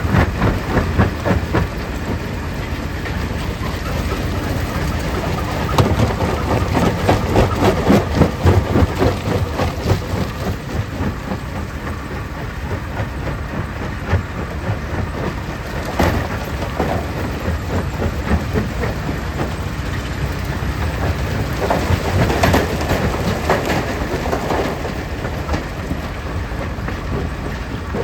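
Stone crusher running, a dense continuous clatter of rock being broken over a low rumble. It grows louder for a few seconds about six seconds in and again briefly around sixteen and twenty-two seconds in.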